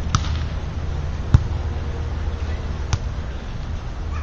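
Volleyball struck by players' hands and arms during a beach volleyball rally: three sharp hits about a second and a half apart, the middle one the loudest, over a steady low rumble.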